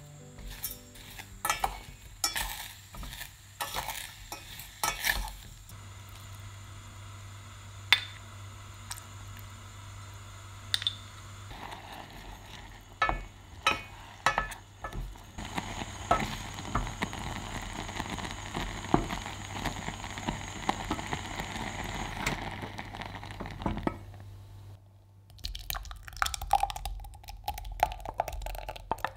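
A wooden spoon stirs chopped strawberries and sugar in a stainless steel saucepan, knocking against the pan now and then. About halfway through, the fruit sizzles and bubbles as it simmers. Near the end, the hot strawberry sauce is poured into a glass measuring jug.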